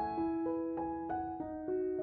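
Background piano music: a slow melody of ringing notes, a new one about every half second.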